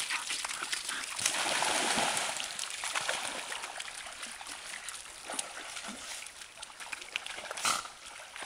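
Dogs splashing as they run into and wade through a shallow stream. The splashing is loudest a second or two in, then settles into lighter sloshing and running water.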